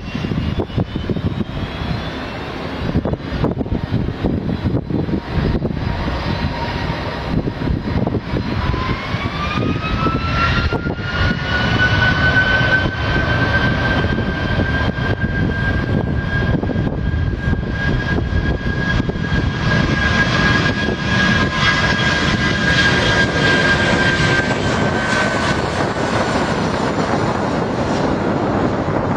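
Loud, steady aircraft engine noise. About nine seconds in, a whine rises in pitch, holds steady, and fades out a few seconds before the end.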